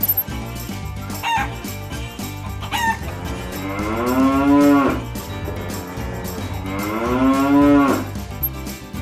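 Two short squawks from a chicken, then a cow mooing twice, each moo long and drawn out, rising and then falling in pitch, over background music with a steady beat.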